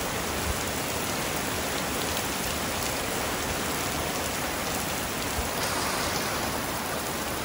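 Heavy rain pouring steadily onto a flooding lawn and patio: a constant, even hiss of falling water.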